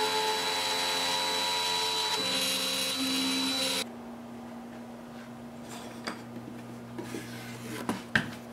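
Inventables X-Carve CNC spindle whining steadily as an eighth-inch bit routes through quarter-inch MDF, its tone shifting slightly about two seconds in. It cuts off abruptly a little under four seconds in, leaving a low steady hum and a few light knocks as the cut MDF sheet is handled near the end.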